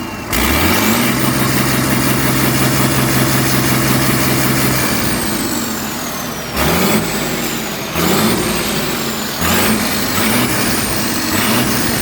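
Star truck diesel engine revved and held for several seconds, its turbocharger giving a high whistle that rises with the revs and falls away as they drop. Then a run of quick throttle blips follows, each with a short rising-and-falling turbo whistle, coming faster near the end.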